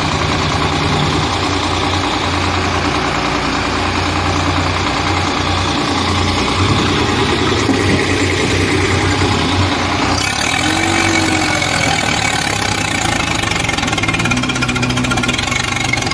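Swaraj 855 FE tractor's diesel engine running steadily under load as it pulls on a chain against a heavily loaded trolley stuck in mud. The engine note shifts about a second in and again about ten seconds in.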